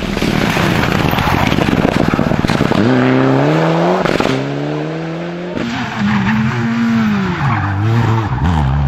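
Rally car engines accelerating hard past the roadside, one after another, their pitch rising steeply and dropping back at each gear change. Near the end a Škoda Fabia S2000's four-cylinder engine revs up and down through several quick shifts as it goes by.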